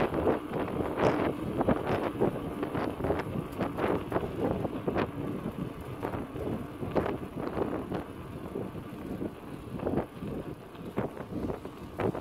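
Wind buffeting a smartphone's microphone on a moving bicycle, mixed with irregular knocks and rattles from the bike and its tyres rolling over the path.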